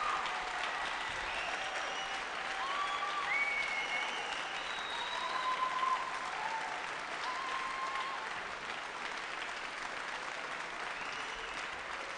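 Concert-hall audience applauding steadily, with scattered cheers and whistles over the first several seconds.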